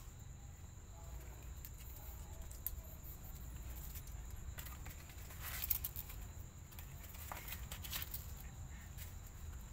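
Quiet background: a steady low hum and a constant thin high whine, with a few soft rustles and clicks around the middle and again a couple of seconds later.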